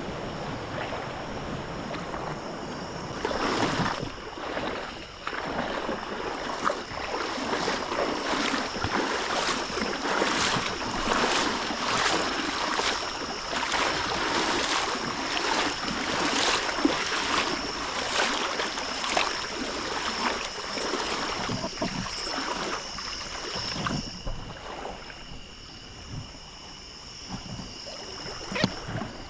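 Water splashing and sloshing in many irregular strokes, as of wading or stirring through water, dropping off in the last few seconds; a steady high-pitched whine runs underneath.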